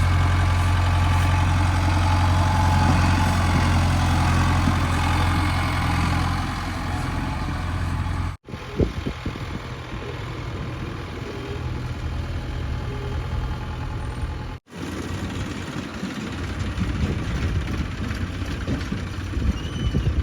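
Heavy diesel engine running steadily with a strong low hum. The sound breaks off abruptly twice, about eight and fourteen seconds in, and each time comes back as a quieter engine sound with scattered clatter.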